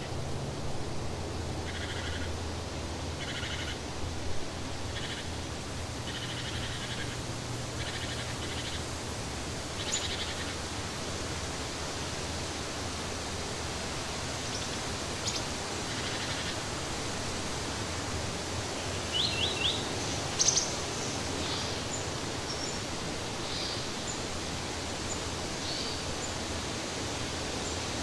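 Steady outdoor hiss with short, high chirping calls scattered through it, and a quick run of several chirps a bit past the middle.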